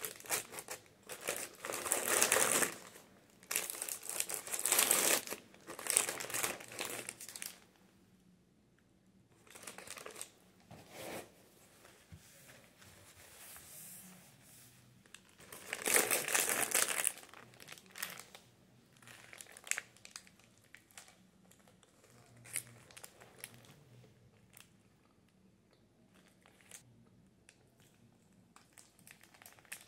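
Paper sandwich bag and wrapping paper crinkling and rustling as a sandwich is unwrapped and handled. It comes in several loud bursts over the first seven seconds and again around sixteen seconds, with softer small rustles and clicks between.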